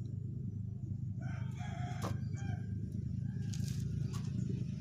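A rooster crows once, from about a second in, over a steady low machine hum.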